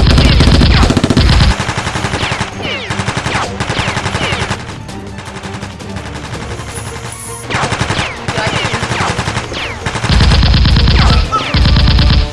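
Rapid automatic gunfire sound effects in bursts, loudest for about a second and a half at the start and in two bursts near the end, with falling whistling sweeps in between.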